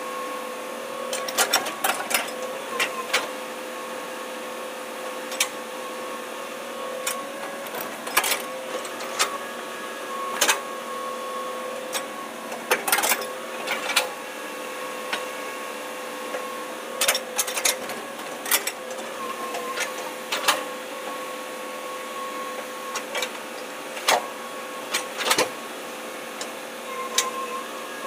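Hitachi hydraulic excavator running steadily with a constant humming tone as it digs and dumps soil. Irregular sharp clanks and knocks from the bucket and arm come through, several in quick clusters.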